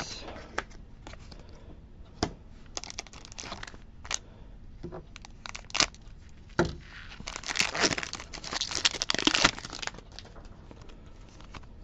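Plastic foil wrapper of a Pokémon booster pack being torn open and crinkled: a dense run of crackling about seven seconds in that lasts a couple of seconds. Before it, scattered light clicks and rustles of trading cards being handled.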